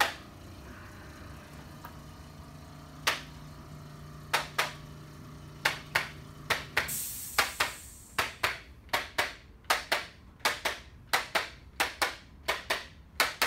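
Sharp clicks or taps: a few scattered ones, then a steady run of about three a second from about eight seconds in. Under the first half, a low steady hum stops about seven seconds in with a brief hiss.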